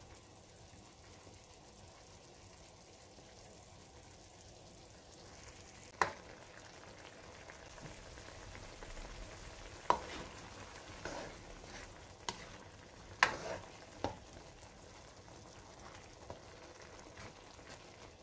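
A vinegar and soy sauce braising liquid sizzling faintly as it heats in a stainless steel wok. A spoon stirs it, knocking against the side of the wok about six times in sharp clicks in the middle stretch.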